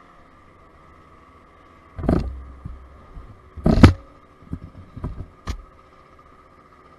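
A 50cc scooter running faintly and steadily underneath, broken by loud rustling knocks as the rider's arm brushes against the camera, twice loudly about two and four seconds in, then a few smaller bumps.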